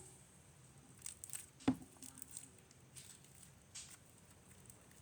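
Hands kneading and pulling sticky glue slime in a small container: scattered soft squelches and sticky crackles, with one sharper thump about a second and a half in. The slime is still sticky, not yet fully set.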